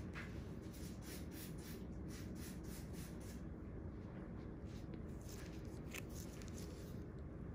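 Faint scratchy rubbing and light ticks over a steady low hum: gloved fingers and cotton pads pressing and wiping skin while a lancet picks at a blackhead.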